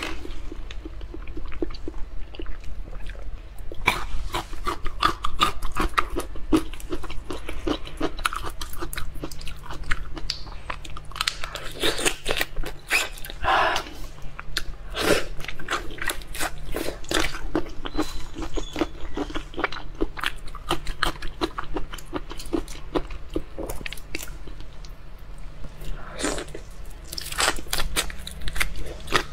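Close-miked eating of soy-sauce-marinated shrimp: biting and chewing, with wet mouth noises and a dense, continuous run of clicks and crackles.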